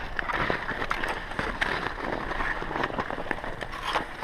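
Ice skates gliding and scraping over snow-covered ice: a steady rough hiss with scattered small clicks.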